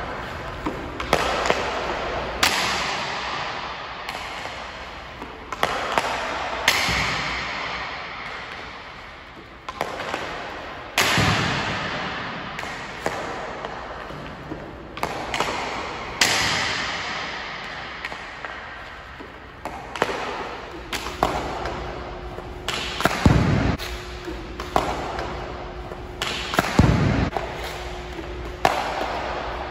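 Hockey stick and pucks on synthetic ice: sharp cracks of shots every few seconds, each trailing off in a long echo, with lighter stick taps between. There are two heavier thuds near the end.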